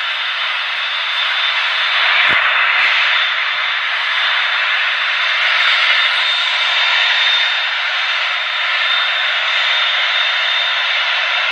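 Jet airliner engines running: a steady rushing noise with a constant high-pitched whine, swelling slightly a couple of times.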